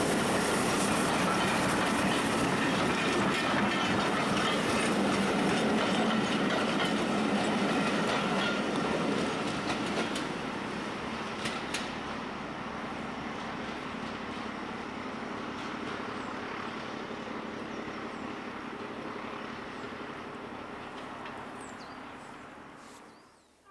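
Steam-hauled passenger train passing close by, its coaches rolling loudly along the rails, then fading steadily as the train draws away down the line.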